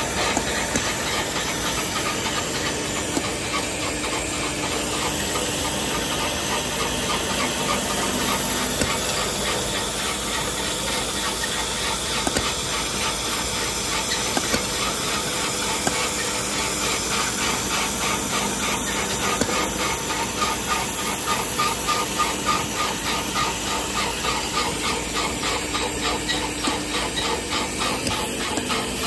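Automatic cap-inserting machine for saliva ejector tubes running: a steady hiss with a fast, even rattle from its vibratory bowl feeder shaking plastic caps and the mechanism fitting caps onto the tubes.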